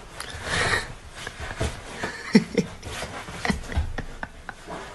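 A person's voice in a few short bursts.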